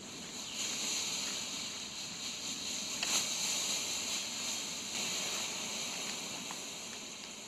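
Pull-string colour smoke grenade hissing steadily as it burns, the hiss weakening as the grenade nears burnout.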